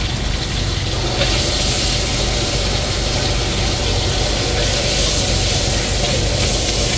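Gas wok burner running with a steady low rush under the wok, with food sizzling as it is stir-fried with a ladle; the sizzling hiss grows louder about a second in.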